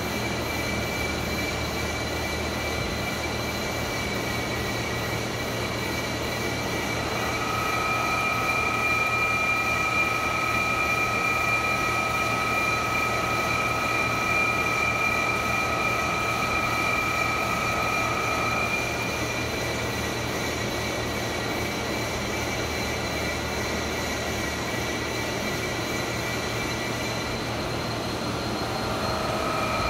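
Floor-type horizontal boring mill running: a steady mechanical hum with high whining tones. A stronger pair of whines comes in about seven seconds in, fades out shortly before twenty seconds and returns near the end.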